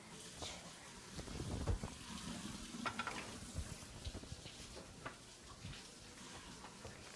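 Kitchen handling sounds: scattered knocks and clatter of utensils or dishes over a steady hiss that comes on suddenly.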